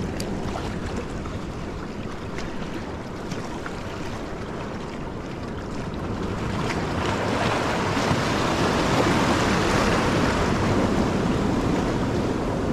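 Sea waves washing against shoreline rocks, with wind; the wash swells louder about halfway through.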